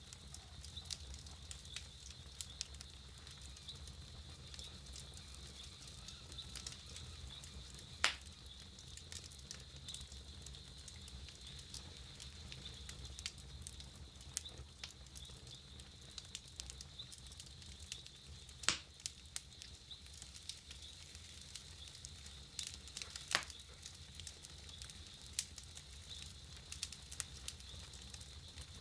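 Wood campfire burning with a steady crackle: many small snaps, and three louder pops spread through.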